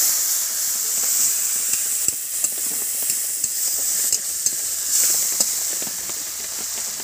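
Ground spice paste and its water sizzling hard in hot oil in a cooking pan, a steady hiss, with a few sharp clicks of the stirring utensil against the pan.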